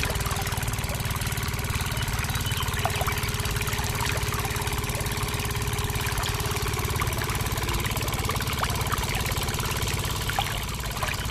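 Miniature diesel engine model running with a fast, even chugging as it drives a small water pump, with water trickling into a tank.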